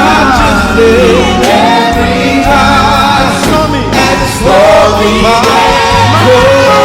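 Live worship singing: voices holding long, gliding sung notes over steady instrumental accompaniment.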